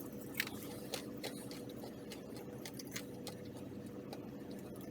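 Scattered light clicks and crinkles of a plastic food pouch being handled, over a steady low hum with a faint steady tone.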